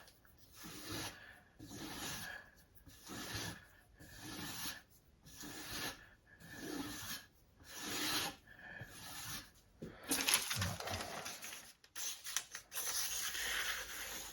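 Sharpening stone on a Tsprof Kadet guided sharpener scraping along a chef's knife edge in even strokes, about one a second. About ten seconds in, it changes to quicker, denser scraping.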